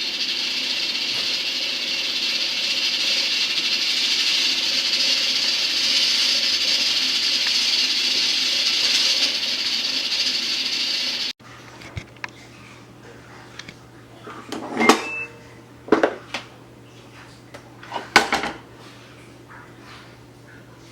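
A steady rushing hiss stops abruptly about eleven seconds in. After it comes a low hum and a few sharp clinks and knocks of kitchen dishes and utensils.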